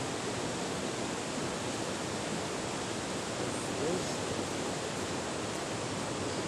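Steady rush of flowing water, an even hiss with no breaks.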